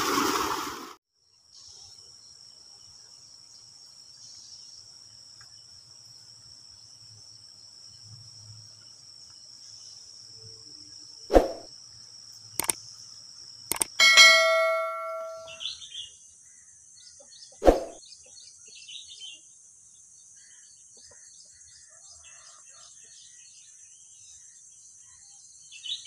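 Subscribe-button animation sound effects: three sharp clicks, then a bell notification ding about halfway through that rings for about a second and a half and steps down in pitch, and one more click a few seconds later. Underneath runs a faint steady high-pitched drone with scattered faint chirps.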